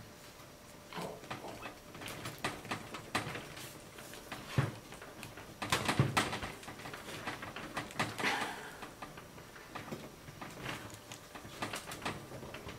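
Scattered light clicks and short scrapes with a few sharper knocks: metal parts handled and a steel pick working at the seals on a hydraulic tilt cylinder's rod gland, on a metal workbench.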